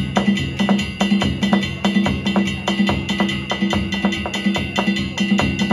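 Music with a fast, even percussion beat of sharp strokes over sustained tones.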